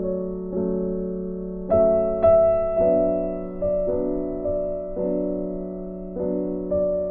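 Slow, gentle background piano music: chords struck about once a second, each left to ring and fade.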